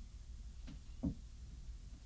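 Two soft knocks, the second and louder about a second in, over a low steady hum.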